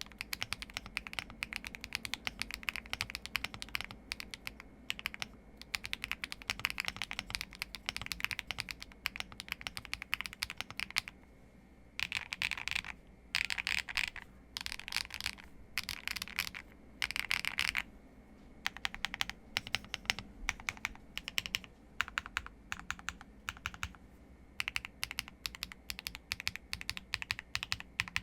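Typing on a Qwertykeys QK100 mechanical keyboard with stock HMX Gravel switches, Osume Dusk keycaps and all foams installed, a raindrop-like patter of keystrokes. The typing runs steadily, with several dense, rapid flurries of keystrokes in the middle.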